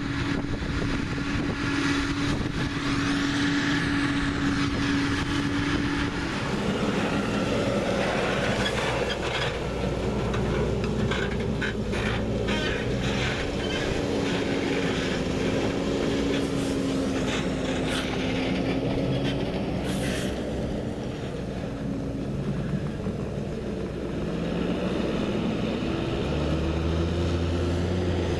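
Large diesel farm machinery running steadily during green-rye chopping, with a whine that wavers slightly in pitch. Near the end a deeper engine note rises as a machine accelerates.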